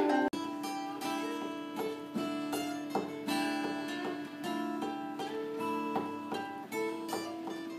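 Music played on plucked acoustic guitar, a run of clean picked notes.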